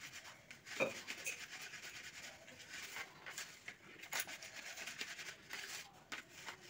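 Fingers rubbing crushed biscuit powder through a plastic sieve: soft, irregular scratching and rasping, with a few sharper scrapes.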